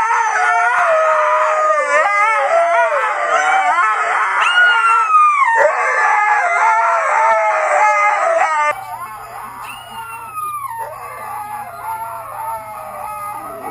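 Two huskies howling together in long, wavering howls that glide up and down in pitch. About two-thirds of the way through it cuts suddenly to quieter dog howling over a low steady hum.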